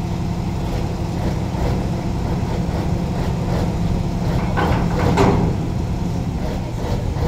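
Heavy diesel engine running steadily at a low idle, with two short louder sounds about five seconds in.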